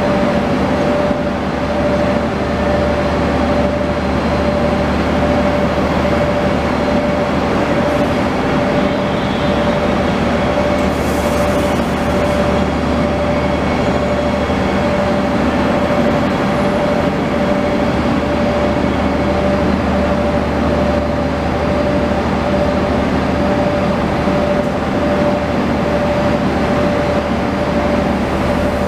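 Israel Railways double-deck electric train at the platform, its electrical equipment running with a steady hum and a constant whine that never changes.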